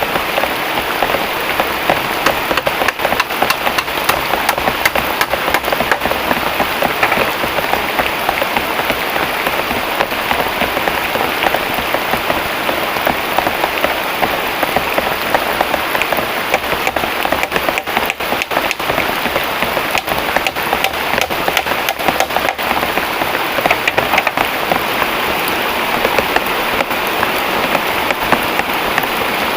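Heavy tropical rain pouring down steadily, a dense hiss of countless close drop impacts.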